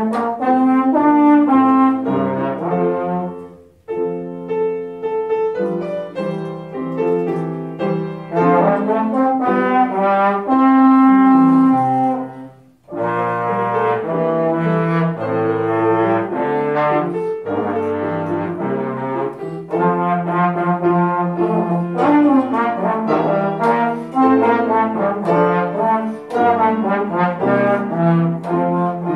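Slide trombone playing a melody of held and moving notes, accompanied by an upright piano. The playing breaks off briefly about four seconds in and again about thirteen seconds in, between phrases.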